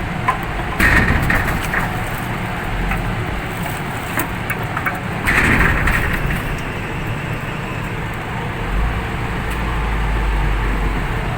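A vehicle engine running steadily, with several knocks and thuds of oil palm fruit bunches being pulled out and dropped, the loudest about a second in and about five seconds in.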